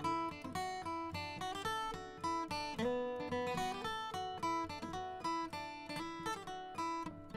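Background music: acoustic guitar plucking and strumming.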